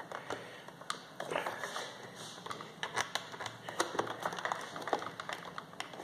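Irregular light plastic clicks and taps as fingers press hard on the dust-bin door release button of a Kobot RV353 robot vacuum. The latch is jammed and the door does not open.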